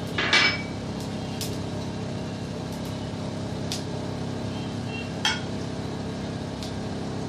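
A steel spatula clinking and scraping against a nonstick frying pan while stirring cumin seeds in hot oil: one louder clatter just after the start, then a few light clicks. A steady low hum runs underneath.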